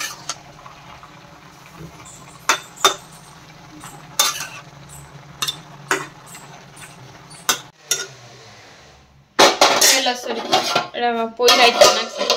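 A metal spoon stirring vegetables in a frying pan, knocking against the pan every second or two over a low steady hum. In the last few seconds there is a louder, busier run of metal-on-metal clatter and scraping of utensils.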